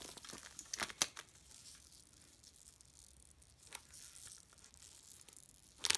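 Faint handling sounds of a quilted lambskin flap bag and its leather-woven gold chain strap being picked up and moved: soft rustling with a few sharp clicks about a second in and a louder cluster of clicks near the end.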